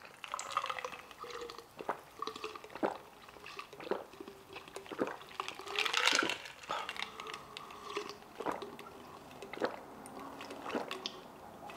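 A person gulping a dark iced drink from a large glass jug, with swallows about once a second, liquid sloshing and ice cubes shifting against the glass.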